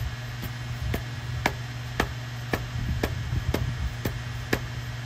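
Milling machine table being traversed to sweep a dial indicator along the vise: a sharp click about twice a second, evenly spaced, over a steady low hum.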